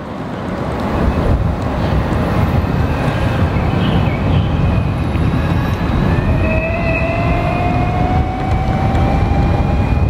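Arc Aileron v1 electric skateboard, a belt-driven drivetrain with its motor run in BLDC mode, ridden at close to full throttle: a loud, low rolling rumble throughout. From about six seconds in, a drivetrain whine rises slowly in pitch as the board gathers speed.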